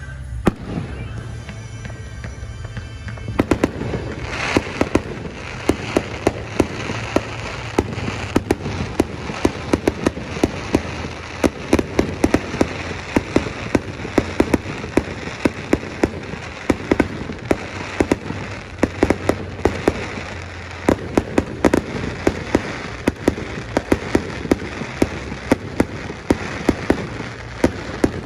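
Fireworks display going off in a dense barrage: rapid sharp pops and crackles, several a second, starting a few seconds in and carrying on steadily. Music plays faintly at the start.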